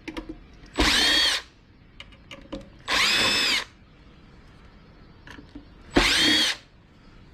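Cordless drill/driver run in three short bursts, its motor whine rising and falling each time as it backs screws out of the centrifuge's casing, with small clicks of screws and parts handled in between.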